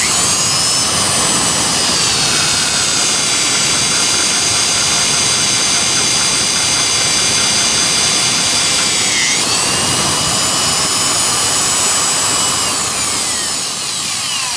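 Electric drill running steadily under load with a high whine, boring through steel with dull, cheap bits that are slow to cut. The pitch dips briefly about nine seconds in as the bit bites, then falls away as the drill winds down near the end.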